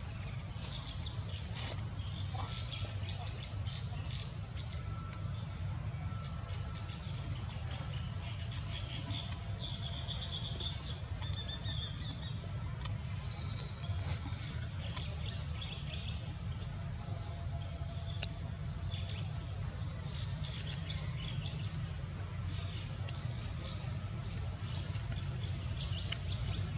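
Outdoor forest ambience: small birds chirping now and then, with short whistled notes, over a steady low rumble and a few faint clicks.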